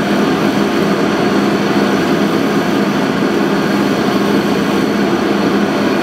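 Propane forced-air heater running with its burner lit: a steady, unbroken roar of fan and flame over a constant low hum.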